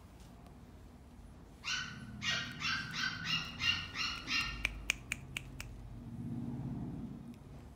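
A puppy yapping: a quick run of about eight short, high-pitched yaps over roughly three seconds, followed by a few sharp clicks and a soft low rumble.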